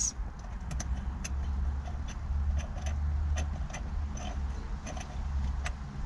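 Scattered small metallic clicks and taps as an Allen key and screws are fitted to a steering wheel quick-release hub, over a steady low rumble.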